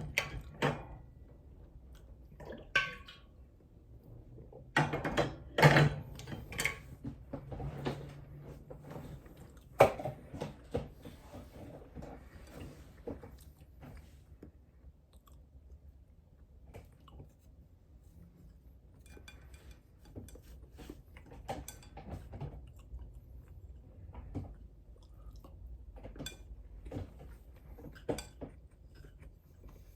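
Close-up sounds of someone eating: chewing and mouth noises mixed with sharp clicks and clinks of utensils on a dish. The loudest cluster comes about five to seven seconds in, with one sharp clink at about ten seconds; the rest is quieter chewing.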